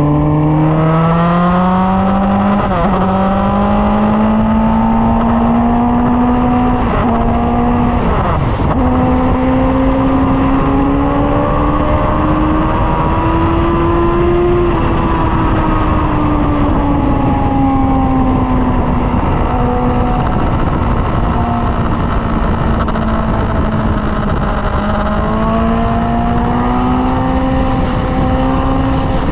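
Sport motorcycle engine pulling at highway speed, its pitch climbing over the first couple of seconds and then rising and falling gently with the throttle, with a few brief dips early on. Wind rushes steadily over the bike-mounted microphone.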